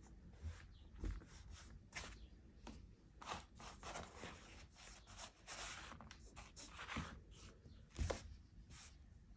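Socked feet rubbing and sliding over worn Fossil flip-flops and a worn black sole on a wooden floor: faint, irregular scuffing swishes with a few light taps, the loudest about eight seconds in.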